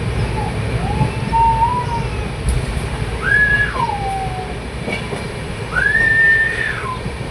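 A train running, with a steady low rumble throughout. Three high gliding tones of about a second each ride over it, each rising, holding and then falling away.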